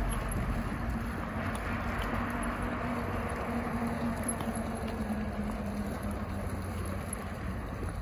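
Steady hum of distant road traffic, swelling a little in the first few seconds, with a faint low engine drone under it.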